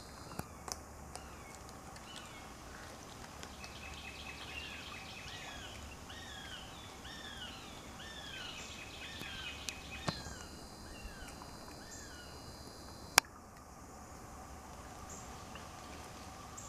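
A bird repeating a series of high, down-slurred notes over a steady high insect drone, with a single sharp click late on.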